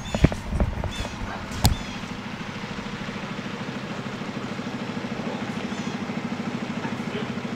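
Engine running steadily with an even, rapid pulse. There are a few sharp knocks in the first two seconds.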